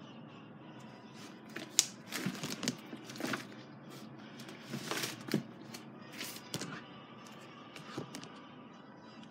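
Irregular short clicks and rustles, a dozen or so scattered unevenly, the sharpest about two seconds in, over a low steady background.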